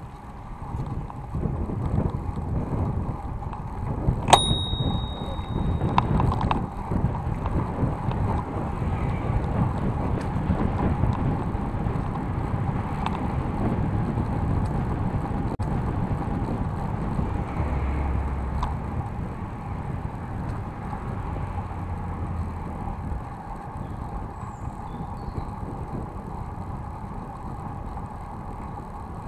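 City bike riding along a paved cycle path, heard from a camera on its handlebar: a steady rumble and rattle of the tyres and frame over the surface. About four seconds in, a bicycle bell rings once, its clear tone dying away over about a second and a half.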